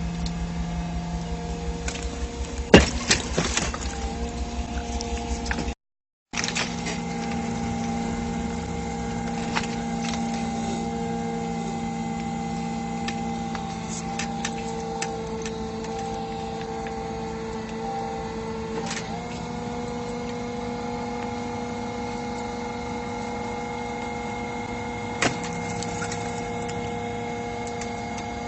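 The engine and hydraulic pump of a hydraulic pile breaker rig run steadily with a constant hum, punctuated by a few sharp cracks, the loudest about three seconds in. The sound cuts out for half a second about six seconds in, and the hum's pitch drops slightly about nineteen seconds in.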